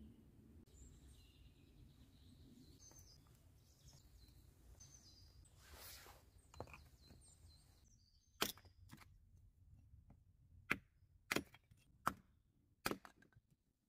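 Hatchet chopping a piece of wood set upright on a log: a series of sharp, loud strikes, about six, spaced half a second to a second apart, in the second half. Before that, faint bird chirps and a short scrape as a stone is set into a fire ring.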